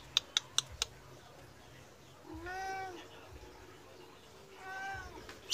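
Persian cat meowing twice, each meow rising and then falling in pitch, the second shorter: begging for food. A few sharp clicks come in the first second.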